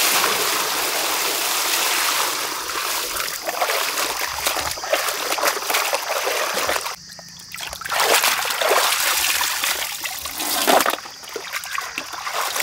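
Whole chickens being washed by hand in a steel basin of water: continuous splashing and sloshing, with a short lull about seven seconds in. Then a chicken is lifted out and water streams off it back into the basin.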